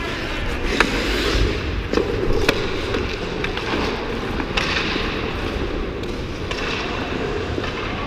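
Hockey skate blades scraping and carving across rink ice, with a couple of sharp clacks about one and two and a half seconds in.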